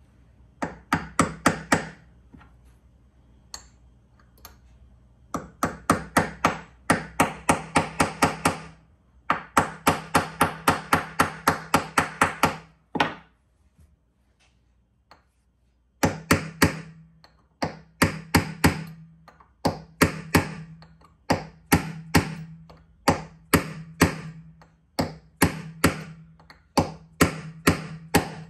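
Hammer taps driving steel pins into a machined aluminium base, in runs of quick sharp knocks, several a second, with a longer pause about halfway through.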